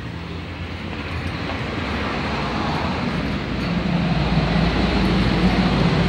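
A motor vehicle's engine and road noise, growing steadily louder as it comes closer.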